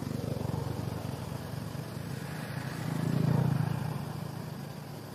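A motor vehicle passing on the road: a low engine rumble that swells to its loudest a little over three seconds in, then fades away.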